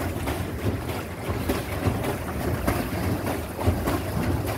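Wind buffeting the microphone over the steady splash and churn of lake water around a pedal boat as it is pedalled along.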